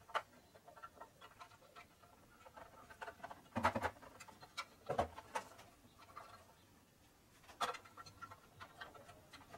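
Faint handling sounds of a rubber valve cover gasket and spark plug tube seals being pressed by hand into the grooves of an aluminium valve (tappet) cover: scattered light clicks and taps, with a few louder knocks in the middle.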